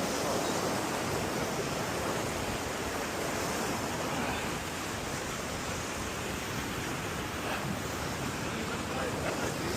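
Steady, even rush of ocean surf and inlet water washing against a jetty, with wind.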